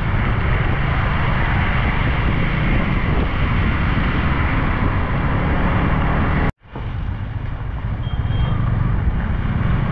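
Riding a motorcycle on a wet road: steady wind rush over the camera microphone, with engine rumble and tyre hiss. The sound cuts out for an instant about two-thirds of the way through, then carries on.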